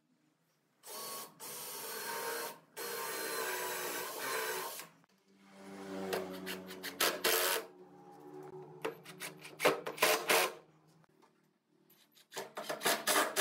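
Cordless drill-driver motor running in two steady spells, then a Makita cordless impact driver driving screws into a wooden frame, its rapid hammering rattle coming in bursts with a last burst near the end.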